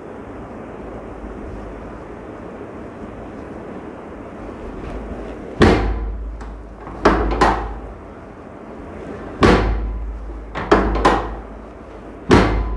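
About seven sharp thuds of chiropractic adjustment thrusts on a patient, irregularly spaced, two of them in quick pairs, each fading quickly.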